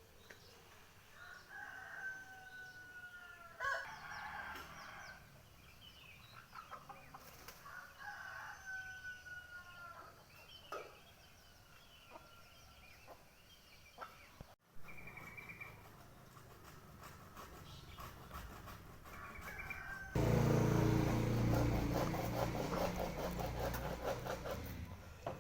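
Birds calling: several drawn-out notes that each fall slightly in pitch, with short chirps between them. About twenty seconds in, a loud low rumbling noise takes over.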